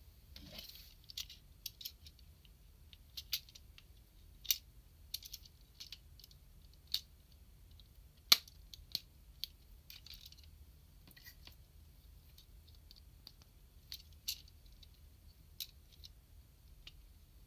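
Small plastic clicks and taps as a Gao King plastic model-kit figure is handled and posed, its parts and joints being moved. The clicks come irregularly, the sharpest and loudest a little past the eight-second mark.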